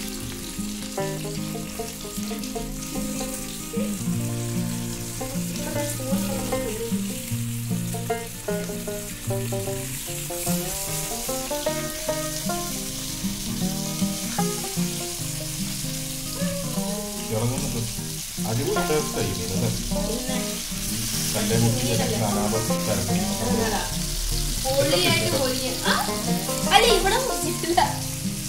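Chili-marinated fish shallow-frying in coconut oil in a pan, with a steady sizzle. Background music plays over it and grows busier and more melodic in the second half.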